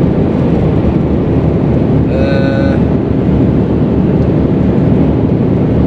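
Steady engine and road rumble inside the cab of a semi-truck tractor unit on the move. About two seconds in, a short pitched sound lasts under a second.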